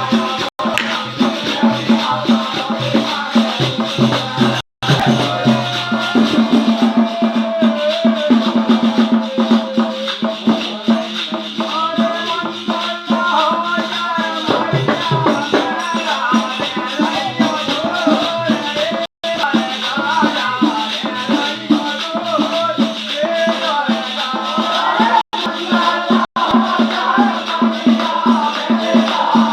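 Bundeli devotional folk song to the goddess (Devi bhagat): a voice singing over a steady drone and rattling percussion. The sound cuts out for an instant a few times.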